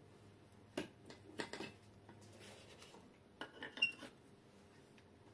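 Faint, scattered clicks and light clinks of hands handling things on a workbench: a few about a second in, then a small cluster about three and a half seconds in.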